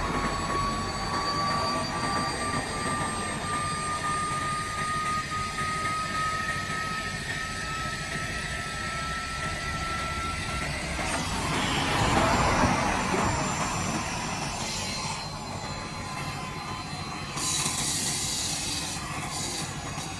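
Handheld vacuum cleaner running, its motor giving a thin whine that creeps slowly upward in pitch over several seconds. About twelve seconds in there is a louder rush of air, and a brief hiss follows near the end.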